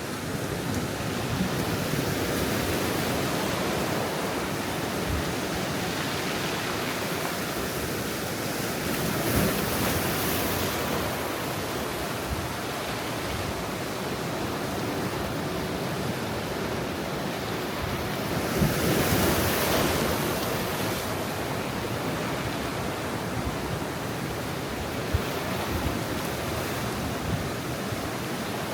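Ocean surf at high tide on a rocky shore: a steady wash of breaking waves, with two larger waves crashing about a third of the way in and again past the middle.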